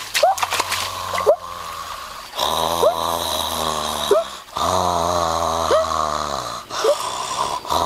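A person snoring with two long, rattling breaths of about two seconds each, starting a couple of seconds in. Short rising squeaks and a steady high-pitched hum run underneath.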